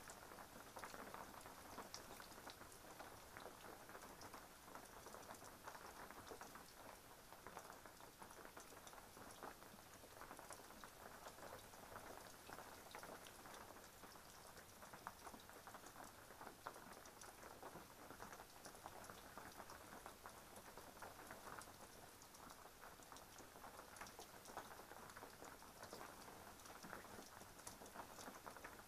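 Faint, steady rain pattering: a dense run of small drops with no single loud event.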